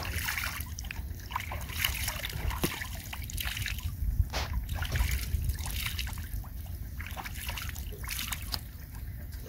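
River water scooped up in cupped hands and splashed onto a face, with several irregular splashes and water dribbling back from the hands.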